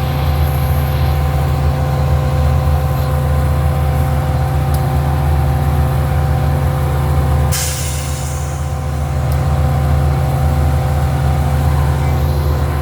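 Metra diesel commuter train standing at the platform, its locomotive running with a steady low drone and a steady whine. About seven and a half seconds in comes a sharp burst of air hiss from the air brakes.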